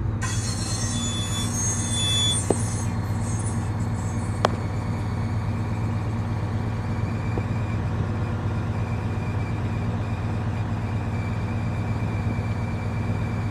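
Terex Demag 100-tonne crane's diesel engine running steadily, heard from the crane cab, with a thin high whine over it. It comes up sharply at the start and then holds an even drone, with a couple of light clicks.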